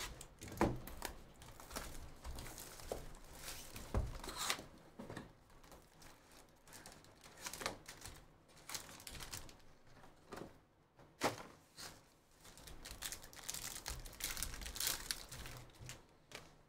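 Plastic wrapper and foil trading-card packs crinkling and tearing as a Panini Prizm football hobby box is unwrapped, opened and its packs pulled out and ripped open, with a few sharp knocks of the cardboard box on the table.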